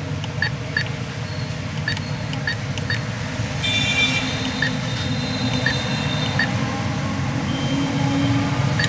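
ATM keypad beeping as a withdrawal code is keyed in: about nine short, identical beeps at an irregular typing pace, over a steady low hum. A brief higher tone sounds in the middle.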